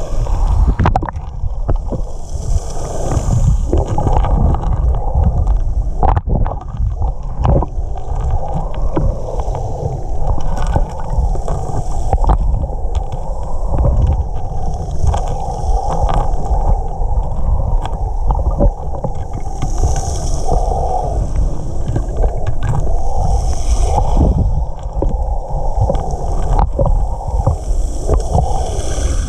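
Muffled underwater water noise picked up by a submerged camera: a steady low rumble and sloshing, with scattered sharp clicks and knocks.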